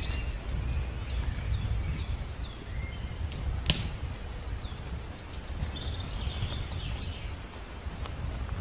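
Small songbirds singing and calling in a spruce forest, short chirping notes repeating throughout over a low steady rumble. A single sharp click sounds a little before the midpoint.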